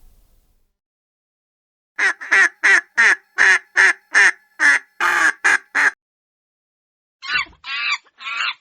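A duck quacking: a rapid run of about a dozen quacks, about three a second, starting about two seconds in, then after a short pause a shorter run of four or five quacks near the end.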